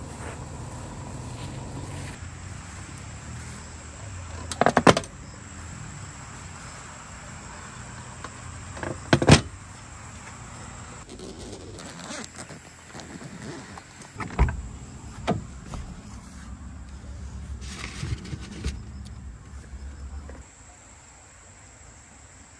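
A low steady hum with a series of sharp knocks and thuds, the loudest about nine seconds in, like doors or gear being handled; the hum stops shortly before the end. A faint high steady tone runs underneath.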